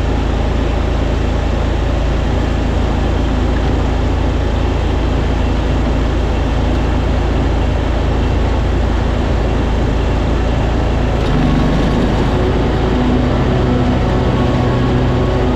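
Riding lawn tractor's gas engine running steadily under load with the mower deck engaged; the engine note shifts about eleven seconds in.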